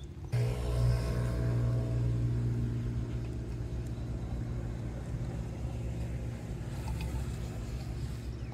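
A motor engine running steadily, starting abruptly just after the start and slowly getting quieter.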